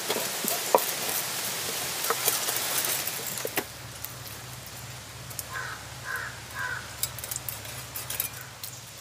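Knives scraping scales off small goatfish, a scratchy rasp with sharp clicks that is busiest in the first few seconds and then thins out. A bird calls three times, short and evenly spaced, about six seconds in.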